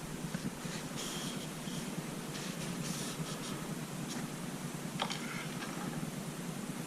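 Handling noises from pulling and checking an engine oil dipstick: light scraping and rustling, with a sharp click about five seconds in.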